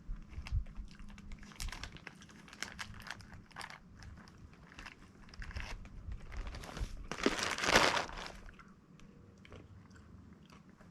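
Close-up chewing and crunching of a crunchy snack from a packet, with many small crackles. A louder rustle comes a little past the middle.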